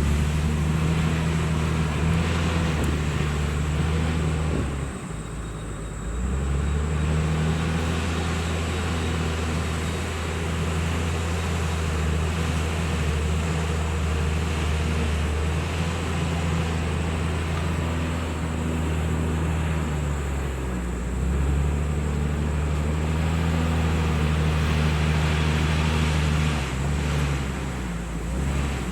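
Heavy earthmoving machine's diesel engine running steadily, its note dropping briefly about five seconds in, around twenty seconds and near the end before picking up again as the load changes. A faint steady high whine runs along with it.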